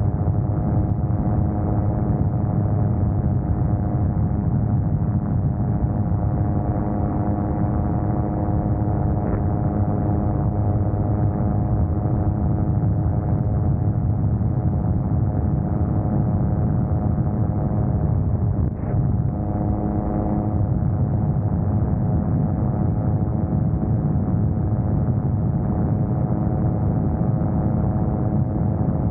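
Autogyro in steady cruise flight: its engine and propeller drone evenly at a constant pitch, with a rush of air over the open cockpit. The sound dips briefly about two-thirds of the way through.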